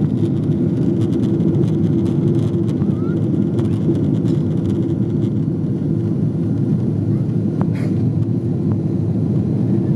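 Steady noise of a jet airliner's engines and rushing air heard inside the passenger cabin during the climb after takeoff, with a low steady hum in it. A single short click comes near the end.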